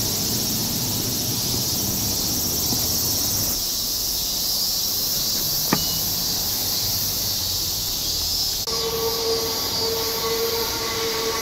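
A steady high insect chorus from the wooded hillside. Just before the middle, a short electronic beep from an IC card fare reader as a phone is tapped on it. Near the end, a sustained squeal starts up from the wheels of an approaching Hakone Tozan Railway train.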